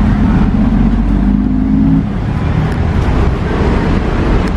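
Street traffic close by: a motor vehicle's engine running with a steady low hum that drops away about two seconds in, leaving the general rumble of passing road traffic.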